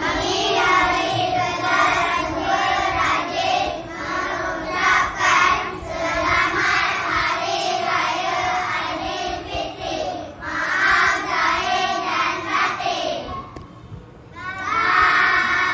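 A class of young children singing together in unison, breaking off briefly near the end before starting again.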